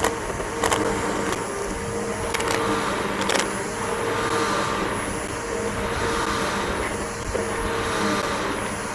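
Bissell BigGreen PowerForce upright vacuum cleaner running steadily with a motor whine, a few sharp clicks in the first few seconds.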